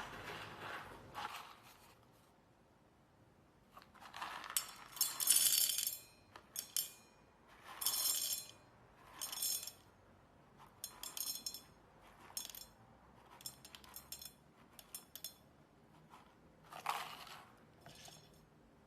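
Coffee beans being weighed out, rattling and clicking into a container in a series of short pours, with pauses between, loudest about five and eight seconds in.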